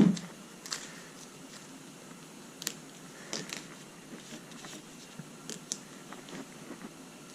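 Light, scattered clicks and taps of hand work on a car door's window parts, with one louder knock at the start.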